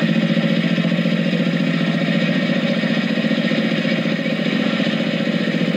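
Vintage tractor engine running slowly with a rapid, even beat.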